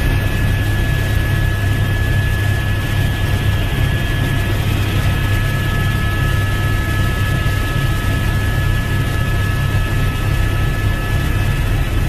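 Aircraft engine noise held at a steady pitch: a constant low drone with a thin, unchanging high whine above it.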